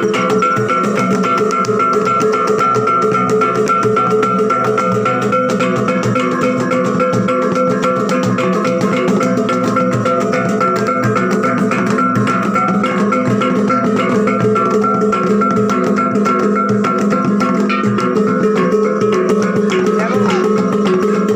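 Background music with guitar and percussion, playing steadily.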